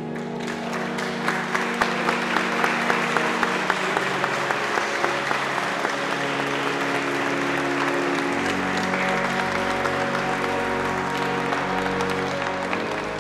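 Congregation applauding in a reverberant church over music that keeps playing. From about a second in, the clapping falls into an even beat of three to four claps a second for a few seconds, then goes on as steady applause.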